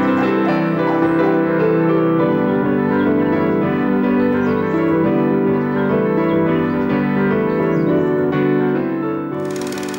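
Soundtrack music led by piano, held chords at a steady level. Near the end it fades and a steady hiss takes over.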